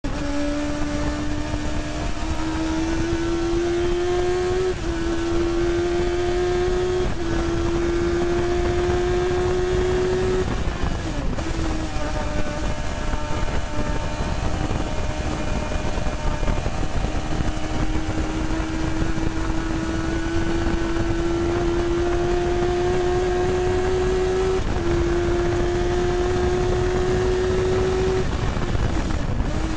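Motorcycle-engined single-seater racing car heard onboard at speed. The engine note climbs steadily in each gear and drops sharply at quick upshifts about five and seven seconds in. It eases off briefly around ten seconds in, then pulls through a long climbing gear to another upshift about twenty-five seconds in, and backs off again near the end.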